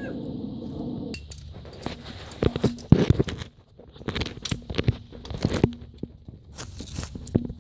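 A single suppressed shot from a .510 Beck bolt-action rifle about three seconds in, with the crack of a supersonic bullet. Scattered clicks and knocks come before and after it.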